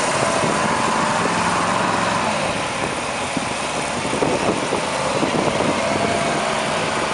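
Radio-controlled monster truck's small engine running, its pitch wavering up and down as the throttle changes.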